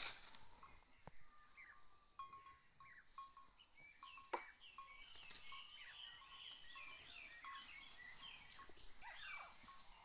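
Faint animal calls: many short, high chirping notes and quick falling sweeps, with a single sharp click about four seconds in.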